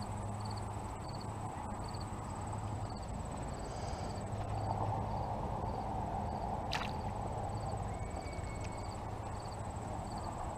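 Crickets chirping in a steady rhythm, about three chirps every two seconds, over a constant high thin tone and a background rush. A single sharp click comes about seven seconds in.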